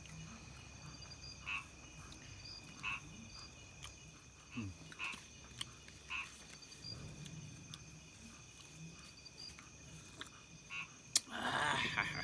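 Frogs croaking in short calls every second or two over a steady high insect chirring, with a sharp click and a louder rustling burst near the end.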